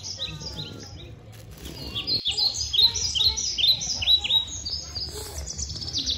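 Small birds chirping: many short, downward-sliding chirps that come thicker from about two seconds in and run into a fast trill near the end.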